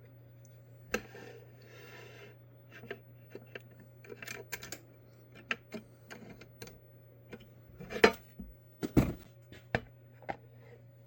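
Scattered clicks, taps and knocks of hard parts and tools being handled on a workbench, with the loudest knocks clustered near the end, over a steady low hum.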